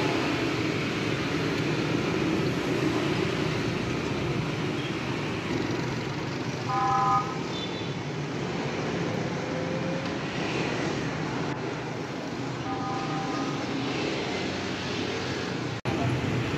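Steady street traffic noise of passing motorbikes, with a short horn toot about seven seconds in and a fainter toot around thirteen seconds.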